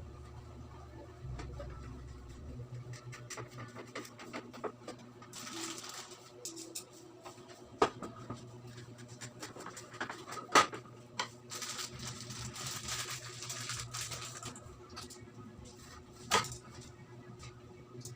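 Handling noises: intermittent scraping and small clicks, with three sharp knocks spread through, over a steady low hum.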